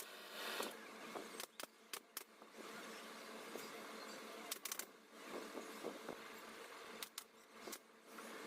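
Hand-tool handling noise during sofa upholstery work: irregular sharp clicks, some in quick pairs, over a low rustle.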